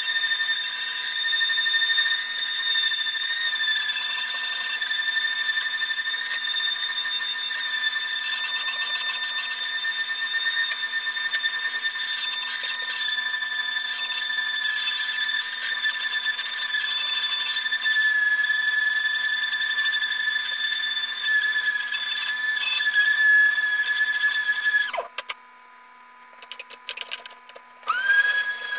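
Random orbital sander running with a steady high whine as it sands a plywood axe handle. About 25 seconds in it stops and a few knocks follow; near the end it starts again, its whine rising as it spins up.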